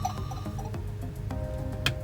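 Music: a tune of held, ringing notes, with a sharp click near the end.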